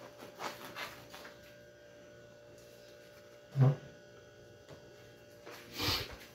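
Small knife cutting through the crust of a French bread roll in a few short strokes, then a single sharp knock about three and a half seconds in as something is set down on the table, and a brief rustle near the end, over a steady low hum.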